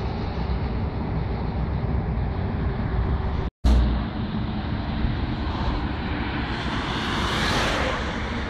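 Steady roadside traffic noise with a low wind rumble on the microphone. A passing vehicle swells and fades about seven to eight seconds in. The sound drops out for a moment about three and a half seconds in, at an edit.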